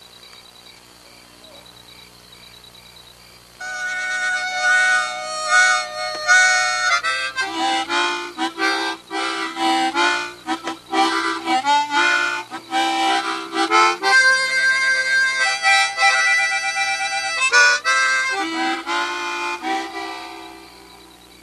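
Harmonica playing a melody of held notes and chords. It comes in loudly about three and a half seconds in after a quiet start and fades near the end.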